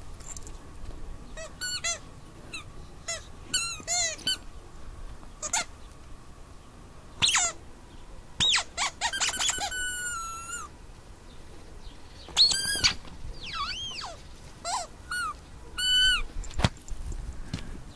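A Jack Russell terrier chewing a squeaky toy football, which gives short, high squeaks at irregular intervals, some in quick runs of several.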